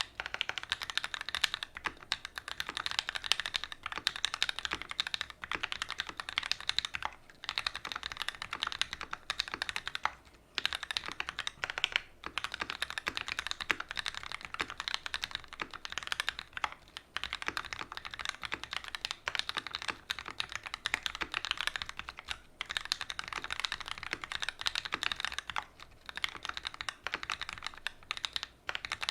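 Fast continuous typing on a custom mechanical keyboard with Gateron Ink Black linear switches on an aluminium plate and GMK keycaps: dense key clacks with a few brief pauses.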